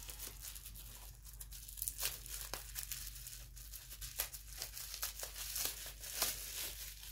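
Plastic bubble wrap crinkling and crackling in the hands as a small item is unwrapped, with irregular sharp crackles and tearing sounds throughout.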